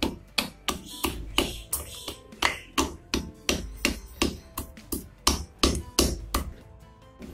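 Wooden pestle pounding hard dried roots (dry ginger, licorice root) in a bamboo mortar, crushing them for an herbal powder: dull knocks about three a second, getting softer near the end.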